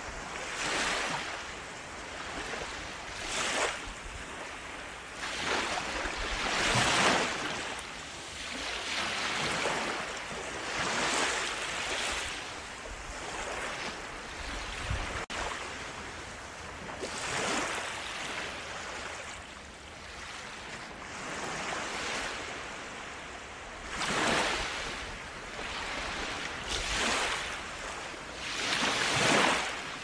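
Small waves breaking and washing up a sandy beach. The surf swells and fades in surges a few seconds apart, each one a hiss of foam running up the sand.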